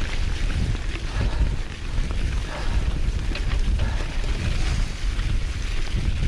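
Wind noise on the microphone over the rumble of a Canyon Grizl gravel bike's tyres rolling on a leaf-covered forest track, with scattered small knocks and rattles as the bike jolts over bumps.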